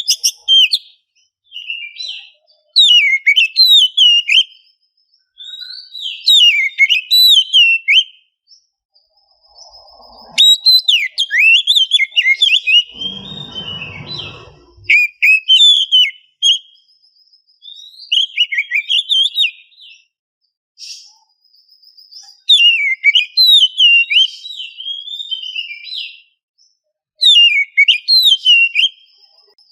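Oriental magpie-robin singing in repeated bursts of fast, varied whistled phrases separated by short pauses, with a brief rougher, noisier sound about halfway through.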